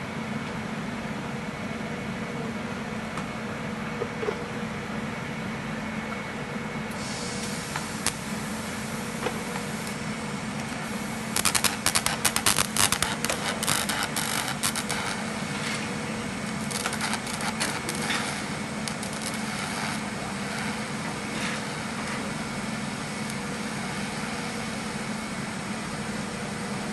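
TIG welding: a steady electrical hum. A hiss switches on about seven seconds in, with bursts of crackling a few seconds later and again shortly after.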